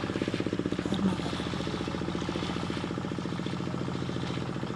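Motorboat engine running steadily with a rapid, even beat.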